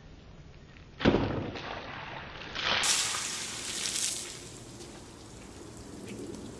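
A bucketful of soapy water dumped over a car, splashing onto the roof and windshield and running off onto the driveway. The splash starts suddenly about a second in, comes again more strongly about two seconds later, then trails off.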